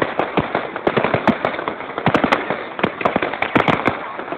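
Aerial fireworks bursting: a rapid, uneven string of sharp bangs, several a second, overlapping one another.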